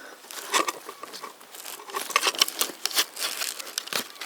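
Dry leaves and twigs crackling and rustling in irregular crunches, as if trodden or moved through.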